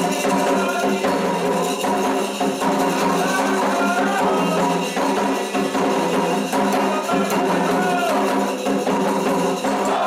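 Candomblé toque for Ogum: atabaque hand drums and a struck bell playing a steady, driving rhythm, with voices singing over it.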